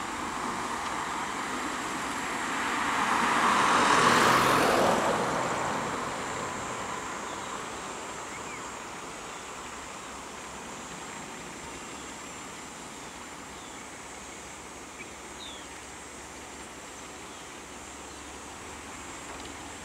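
A road vehicle passing close by: its tyre and engine noise swells to a peak about four seconds in and fades away, leaving a low steady traffic hum.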